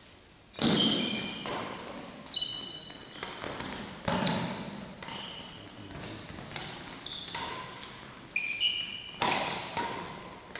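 Badminton rally: sharp racket strikes on the shuttlecock about once a second, ringing in a large sports hall, with short high squeaks of court shoes on the hall floor. The first strike, about half a second in, is the loudest.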